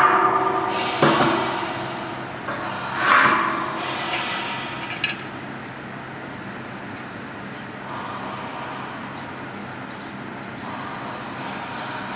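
Metal clanks and knocks against a steel cooling-tower basin during installation, each followed by a short ringing, with a scrape about three seconds in. After about five seconds only a steady low hum remains.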